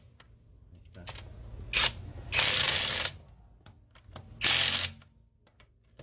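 TEENO 48V brushless cordless impact wrench running a lug nut onto a car wheel in short trigger pulls: two brief blips about a second in, a longer burst of nearly a second in the middle, and another short burst a little past four seconds.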